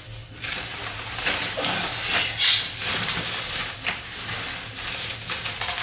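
Bubble-wrap packaging crinkling and rustling in irregular bursts as a wrapped folding clothes-drying rack is handled and lifted upright.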